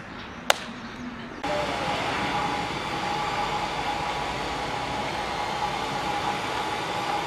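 A single sharp hand slap from a high-five about half a second in. Then, from about a second and a half, a steady rushing noise with a faint thin tone in it, louder than the slap's surroundings.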